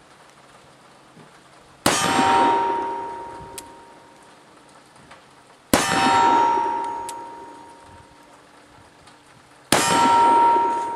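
Three shots from a .44 black-powder Colt 3rd Model Dragoon cap-and-ball revolver, about four seconds apart. Each shot is followed by a long metallic ring from a struck steel target that fades over about two seconds.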